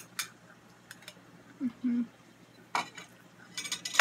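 Metal fork clinking and scraping against a small plate in a few short, sharp strikes, the last several close together near the end. A brief low hum of a voice, in two short pieces, comes about halfway.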